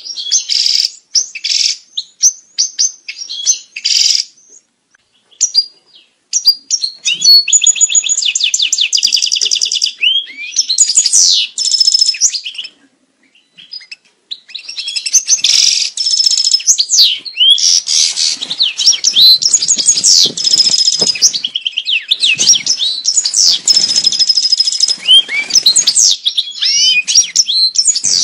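European goldfinch singing its breeding-season song: fast, tinkling twitters and trills mixed with gliding notes and a run of rapidly repeated notes. The song breaks off briefly about four seconds in and again near the middle.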